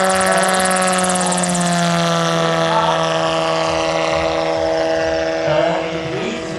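Giant-scale RC autogyro (AutoGyro MTOsport model) flying past, its Hacker A150 electric motor and pusher propeller giving a steady humming tone that drops slightly in pitch about two seconds in and fades a little near the end.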